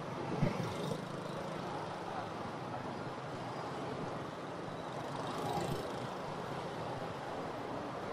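Traffic jam of idling and creeping motorbikes beside a truck: a steady hum of engines. There is a short knock about half a second in.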